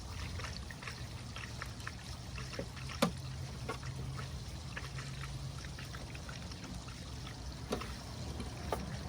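Water trickling and dribbling through the sand filter's plumbing, under a steady low hum and scattered small clicks. There is one sharp knock about three seconds in.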